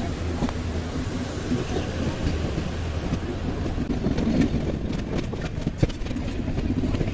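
Train running on the rails: a steady low rumble, with sharp wheel clicks over the rail joints from about the middle on.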